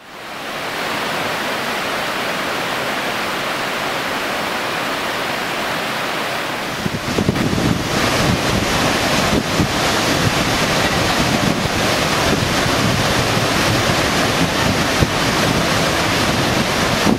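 A waterfall rushing steadily into its pool, fading in at the start. About seven seconds in it grows louder and deeper, with gusty wind buffeting the microphone.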